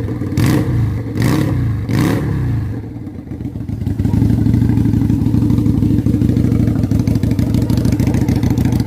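Victorino 250i scooter engine through a modified exhaust, blipped several times in quick succession, each rev rising and falling, then after a short lull running steadily and loudly from about four seconds in.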